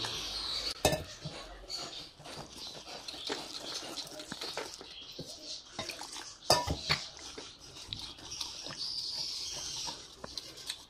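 Wire whisk beating a thick flour-and-egg batter in a steel pot, scraping and clinking against the metal sides with irregular sharp ticks and a few louder knocks.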